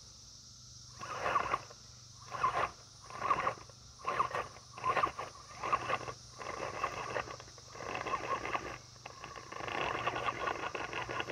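RC rock crawler's electric motor and geared drivetrain whining in short throttle bursts about once a second as it claws up a steep wooden ramp. From about six seconds in, the whine becomes nearly continuous while the truck holds power on the climb.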